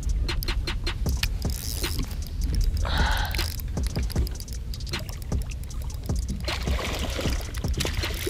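A hooked largemouth bass splashing and thrashing at the surface beside the boat, with splashes about 3 seconds in and again near the end. Scattered clicks and knocks and a steady low rumble run underneath.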